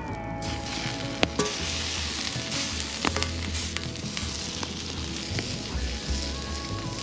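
Food sizzling as it fries in a hot pan, a dense hiss that swells up about half a second in, with a few sharp pops.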